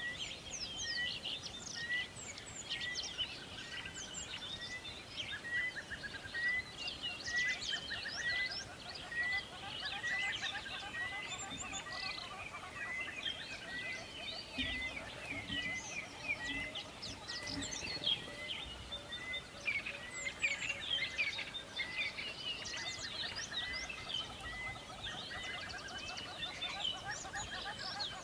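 A chorus of several birds chirping and trilling together. One bird repeats a short note about once a second, stopping about two-thirds of the way through.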